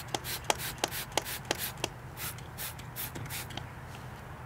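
Trigger spray bottle of soapy water squirted repeatedly at a tire valve stem's TPMS sensor cap to check for an air leak: a quick run of short hissing sprays with trigger clicks, about four a second, stopping about three and a half seconds in.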